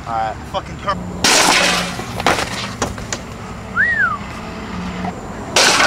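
Skateboard on concrete during a frontside flip attempt down a stair set: a loud rush of wheel noise about a second in, and a sharp loud burst near the end as the board comes down. A brief rising-and-falling whistle-like tone sounds in the middle.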